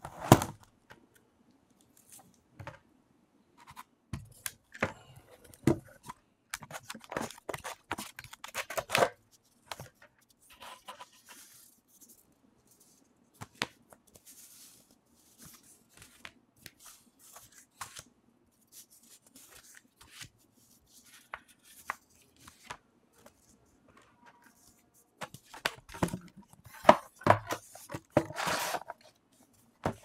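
Unboxing a trackball: a cardboard box, plastic packaging and paper leaflets being handled, rustling and scraping with irregular clicks and knocks. The busiest handling comes about seven to nine seconds in and again near the end.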